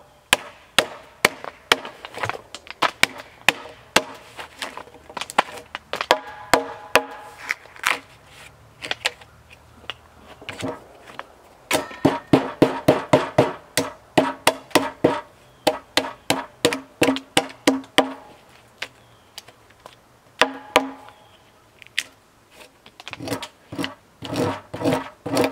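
Claw hammer striking the saw-kerfed end of a 6x6 wooden post, breaking off the thin slices of waste between the cuts to rough out a notch. Sharp knocks on wood in runs of two to four blows a second, many with a short pitched ring from the beam, pausing briefly a couple of times after the middle.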